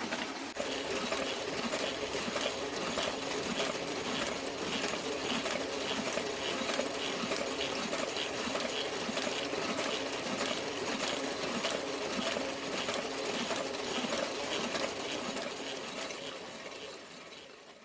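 Toko small offset printing press running steadily, its mechanism making a rapid rhythmic clatter as it prints, fading out near the end.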